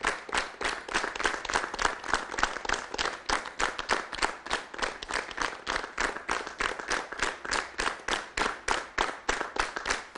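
Studio audience clapping in unison, the claps landing together on a steady, even beat.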